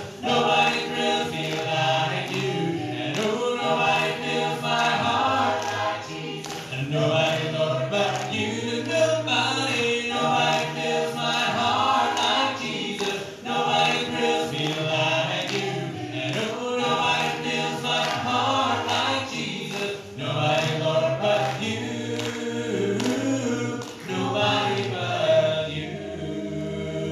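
A choir singing a hymn, several voice parts together.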